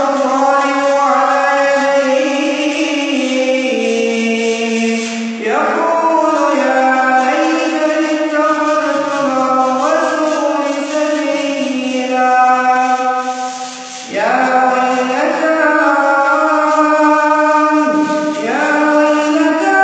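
A man reciting the Quran in a melodic chanted style: long held notes with ornamented turns. He breaks briefly between phrases about five seconds in, near the middle and again near the end.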